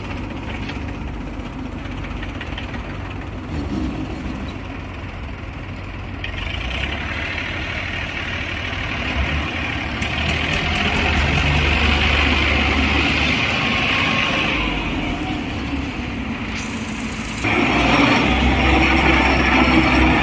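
Diesel tractor engines running, getting louder in stages, with a sudden jump in loudness about three-quarters of the way through.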